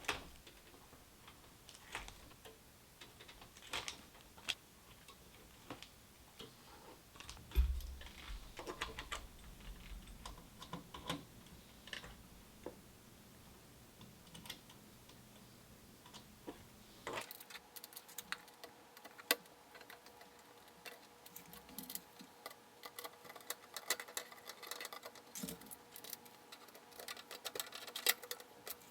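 Clicks of a computer keyboard being typed on: scattered key presses at first, then a quicker, denser run of typing from a little past the halfway point. A low thump with a brief rumble comes about seven or eight seconds in.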